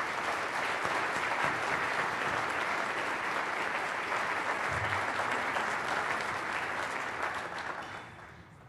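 Audience applauding, a dense, even clatter of many hands that dies away near the end.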